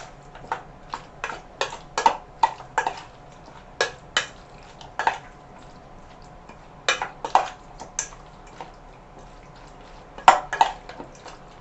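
A utensil clinking irregularly against a bowl while chicken pieces are mixed in their marinade, often two or three clinks close together, some with a short ring after.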